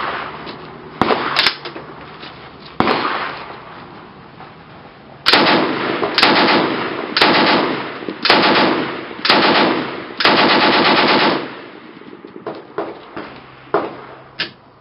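DP-28 light machine gun with an RP-46 belt-feed conversion firing belted 7.62x54R: a few brief shots in the first three seconds, then six short bursts of automatic fire about a second apart from about five seconds in, the last burst the longest.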